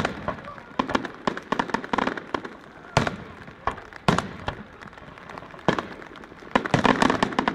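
Fireworks going off: sharp bangs, single ones about three, four and five and a half seconds in, with bunches of rapid crackling reports near the start and near the end.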